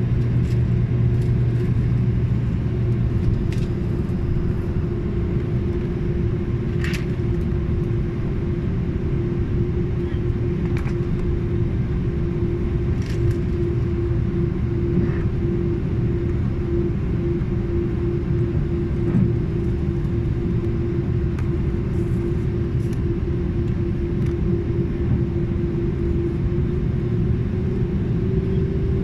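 Airbus A330 jet engines at taxi thrust heard from inside the passenger cabin: a steady rumble with a constant hum, as the airliner taxis onto the runway and lines up for takeoff. A deeper drone fades out a few seconds in.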